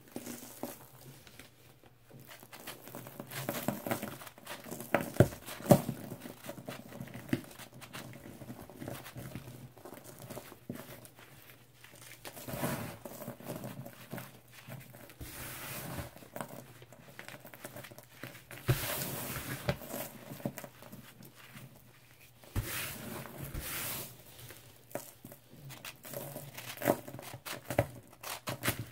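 A hand crushing and crumbling a dried slab of pressed cleaning powders (baking soda, lemon Comet, chalk), with soft irregular crunches and a powdery hiss; the sharpest crunches come about five seconds in. Near the end a knife blade scrapes into a handful of the powder.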